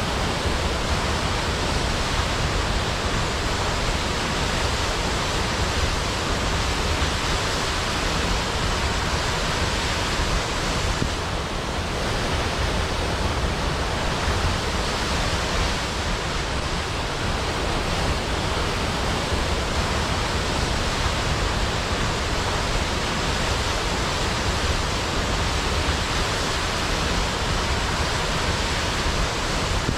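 A large waterfall pouring into a pool, a steady rushing roar of falling water with deep rumble beneath.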